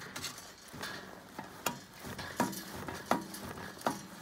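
About six sharp metallic knocks and clinks, some ringing briefly, from a motorcycle's homemade steel ski frame and its coil spring as a boot pushes against it.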